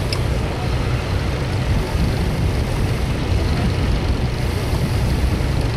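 Tractor engine running steadily, heard as a low rumble.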